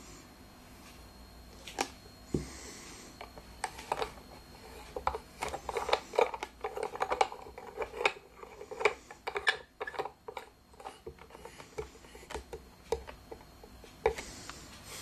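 Irregular small clicks, taps and scrapes of shower-head fittings being handled and screwed together by hand, busiest in the middle.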